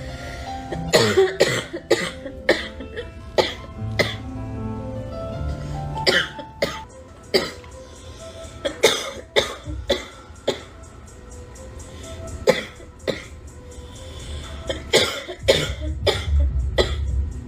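A girl coughing again and again in short fits of two or three coughs, with music with held notes and a low bass playing underneath.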